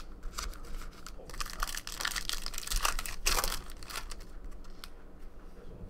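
Trading cards and card packs handled by hand: irregular crinkling, rustling and flicking, busiest in the middle few seconds.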